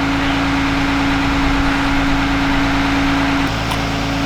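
A machine or engine running steadily: a constant hum under an even hiss.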